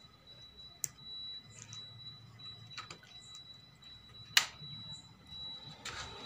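Stranger PBT-1000 power amplifier being switched on through a series bulb: a sharp click about four seconds in, with lighter clicks before and after, over a faint steady high whine and low hum.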